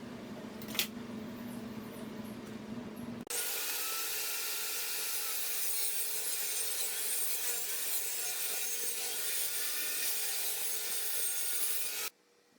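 A power tool working pine wood: a loud, steady hiss that starts abruptly a few seconds in, runs about nine seconds and cuts off. Before it there is a low machine hum with a single click about a second in.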